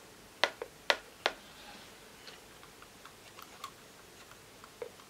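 Sharp clacks from a Pelham monkey marionette as it is worked on its strings: four loud clacks in the first second and a half, then a scatter of lighter ticks.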